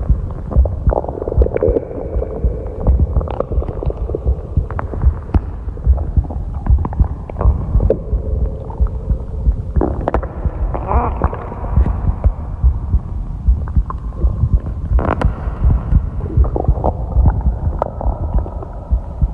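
Human stomach growling and gurgling: a continuous low rumble with many irregular thumps, and short wavering higher-pitched gurgles that come and go, strongest about halfway through.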